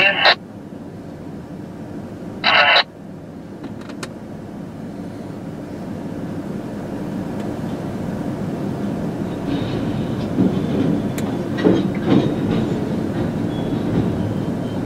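Boxcars of a Norfolk Southern freight train being shoved slowly across a road grade crossing: a steady rumble of rolling wheels that grows louder after about ten seconds, with a few clanks as wheels pass over the crossing. Two short loud bursts come near the start.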